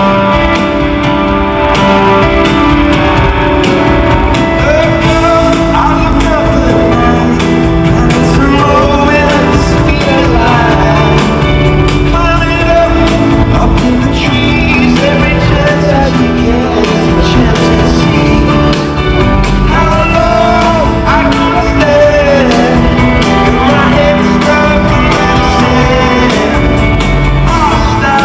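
Live band playing loud rock music with a singer's voice over sustained instruments, recorded from within the audience of a large hall.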